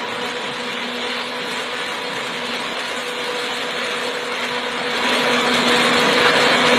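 Motorised tree-cutting machine running steadily, getting louder about five seconds in.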